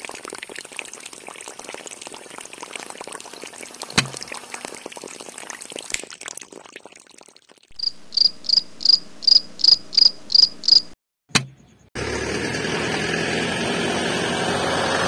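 Mini DC water pumps pouring two thin streams of water into a shallow pond, a steady trickle with a few clicks. About halfway through comes a run of about ten short, high, evenly spaced chirps, about three a second, like a cricket. Near the end a steady rushing noise starts suddenly.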